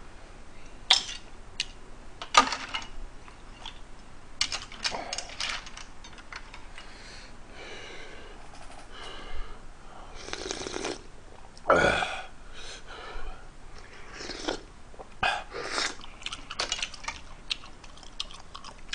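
A person eating ramen noodle soup: loud slurps of noodles and broth from a ladle, with chewing and scattered sharp clicks of a metal ladle and chopsticks against the pot and bowl.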